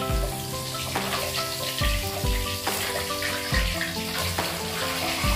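Fish sizzling in hot oil in a wok, fried a second time to make it crisp. Background music with held notes and a beat plays over it.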